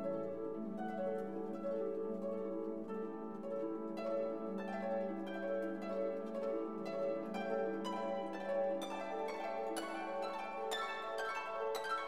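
Background instrumental music: plucked string notes over a held low note, the plucking growing busier in the second half.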